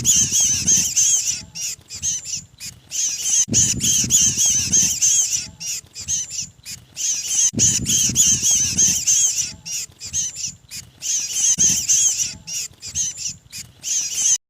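Looped lure recording of mantenan birds' distress calls, the calls of a trapped ('kejepit') bird used to draw others in: fast, shrill, crowded chirping that repeats about every four seconds, with a low rumble at the start of each repeat, and stops abruptly near the end.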